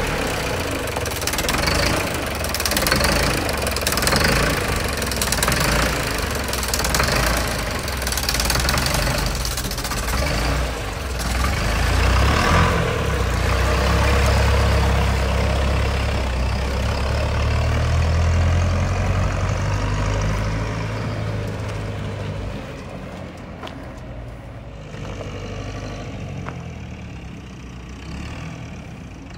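Nuffield farm tractor's diesel engine running, with a strong steady low drone through the middle; the sound grows quieter over the last several seconds.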